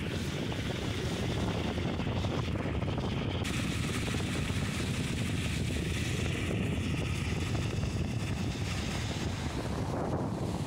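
Steady low rumble of a car driving, heard from inside the car.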